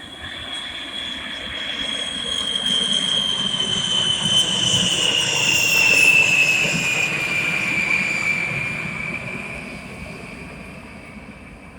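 Boeing B-52 bomber's eight turbofan jet engines passing by: a high whine falling steadily in pitch over a jet rumble that builds to a peak about halfway through and then fades away.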